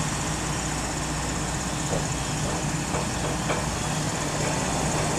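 Heavy engine running steadily at a low, even drone, with a few faint ticks over it.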